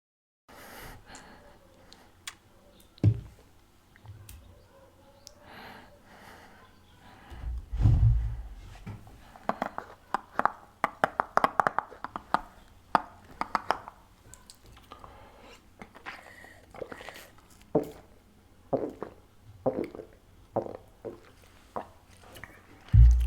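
Close-miked eating sounds: biting and chewing crêpe-dough pastry stuffed with chicken, with wet mouth clicks and a run of fast crackling about halfway through. A few low thumps stand out, the loudest about a third of the way in and at the very end.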